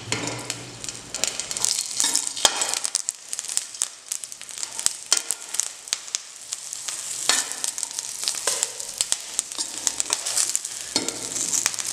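Whole green chillies sizzling and crackling in a little hot oil in a metal pan, with a metal spatula scraping the pan several times as they are stirred.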